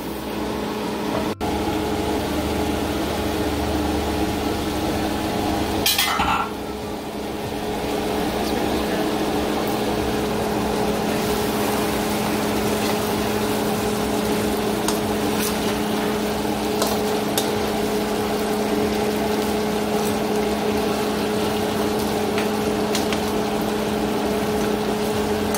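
A spoon stirring and turning fish curry in a nonstick karahi, with scattered scrapes and light clicks against the pan as the sauce simmers. A steady machine hum runs underneath.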